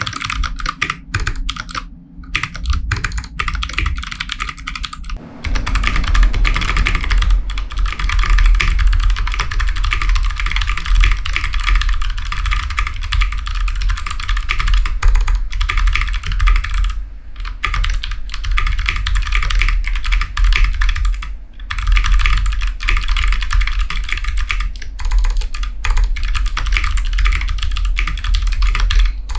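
Custom 60% mechanical keyboard with clicky Kailh Box White switches, a brass plate and JTK Coca-Cola keycaps, typed on quickly and without pause in a typing test. The rapid key clicks get louder and fuller about five seconds in.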